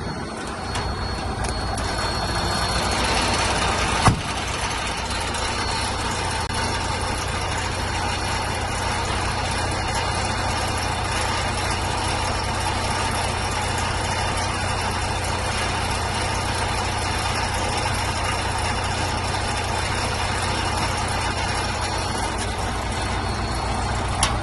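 Tractor unit's diesel engine idling steadily, heard from inside the cab with the blower fan hissing. A sharp thump about four seconds in, and a smaller one near the end.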